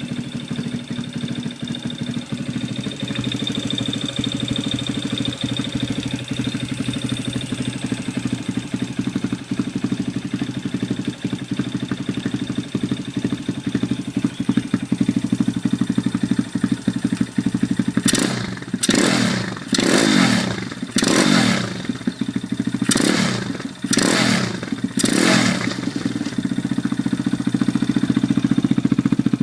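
Kawasaki KSR motorcycle idling through a Striker aftermarket exhaust, then blipped about seven times in quick succession, each rev rising sharply and dropping back to idle, before settling into idle again.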